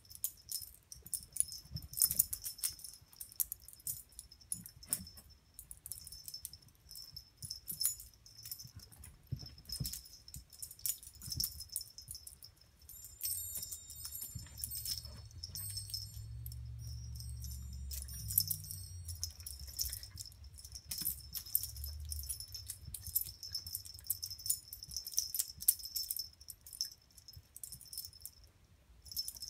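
Pet collar jingling in quick, light metallic clicks and faint ringing as a dachshund puppy and a cat play-wrestle, with soft low thumps of the scuffle in the middle.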